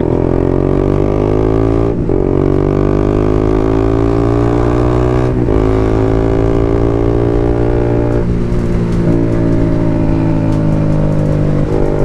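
BMW G310 RR's single-cylinder engine accelerating up through the gears. Its pitch climbs steadily and drops back briefly at each of about four gear changes.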